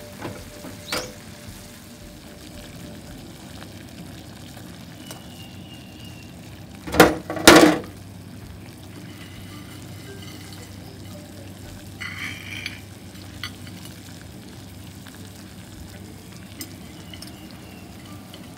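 Chicken and tomato sauce simmering in a pan, then water at a rolling boil in a stainless steel pot: a steady bubbling hiss. Two loud knocks about half a second apart come a little before the middle.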